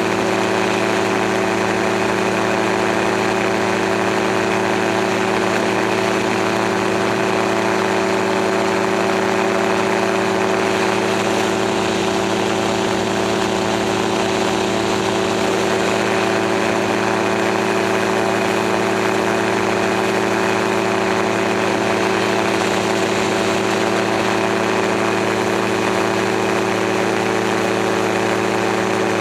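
Gyroplane's engine and propeller running steadily in cruise flight, one constant drone that doesn't change, with an even rush of wind noise over it.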